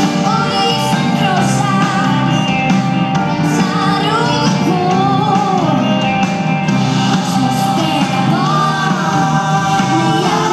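Live pop-rock band with drums, electric guitars and keyboards playing while a woman sings lead, heard from the audience in a concert hall.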